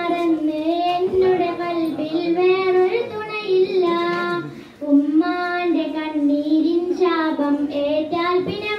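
A young girl singing solo into a microphone with no instruments, in long held notes with a slight waver, pausing briefly near the middle.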